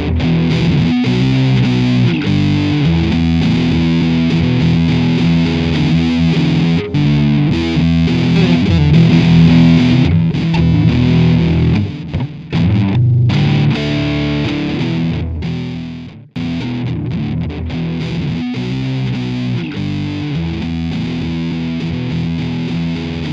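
Outro music: a distorted electric guitar over a bass line with a steady beat, dropping out briefly a few times.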